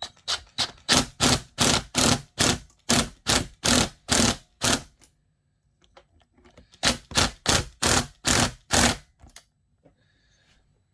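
Ratchet wrench with a 9/16 socket clicking in quick back-and-forth strokes, about three a second, while a nut on the chainsaw's clutch is run down. A long run of strokes is followed by a pause of about two seconds and then a shorter run.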